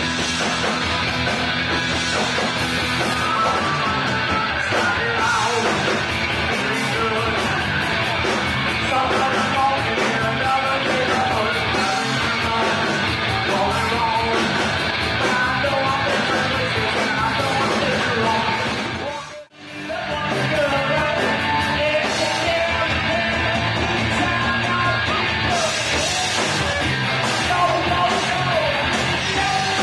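Live rock band playing: electric guitars, drums and a singer on the microphone. The sound cuts out for a moment about two-thirds of the way through, then the song carries on.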